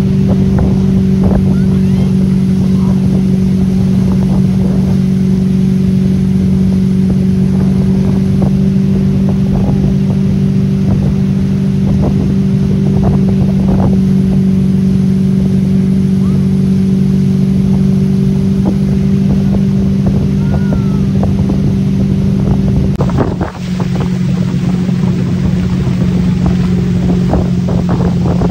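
Motorboat engine running steadily under load, towing an inflatable tube, with wind buffeting the microphone and the wake rushing behind. The engine note holds one pitch, with a brief dip about two-thirds of the way through.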